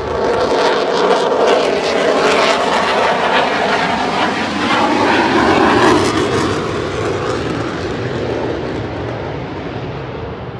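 Airplane flying past at an air show: a loud, sustained engine drone that swells, falls slowly in pitch as it passes, and fades away toward the end.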